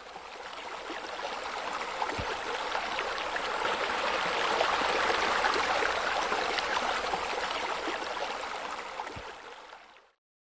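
Flowing water, a steady babbling rush like a brook or spillway. It fades in over the first couple of seconds, is loudest around the middle and fades out shortly before the end.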